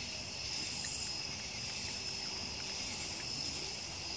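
Steady high-pitched chorus of night insects, such as crickets, carrying on without a break.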